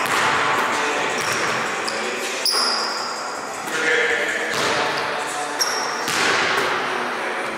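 Basketballs bouncing on a hardwood gym floor during a shooting drill, with short high sneaker squeaks on the court three times.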